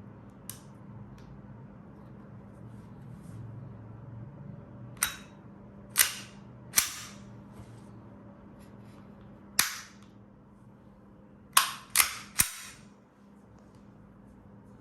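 KJW KP-18 gas-blowback airsoft pistol (a Glock 18 copy) firing seven single shots with sharp cracks, spaced irregularly. The last three come in a quick run about a second from the end.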